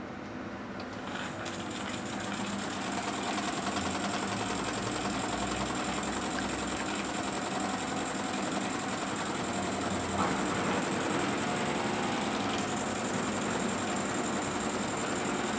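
Jensen #75 toy steam engine starting up about a second in and coming up to speed over the next couple of seconds. It then runs fast and steady with a rapid mechanical chatter, its flywheel turning a small motor used as a generator to light a bulb.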